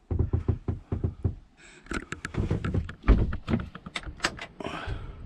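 Irregular knocks, taps, thumps and clicks: handling noise as someone moves about in a small sailboat cabin and reaches up to the under-cabinet galley light.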